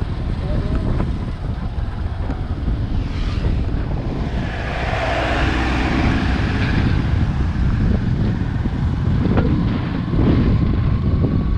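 Wind buffeting the microphone of a camera on a moving motorcycle, a steady rumble with the bike's running engine and road noise beneath it. The rush grows brighter for a couple of seconds about halfway through.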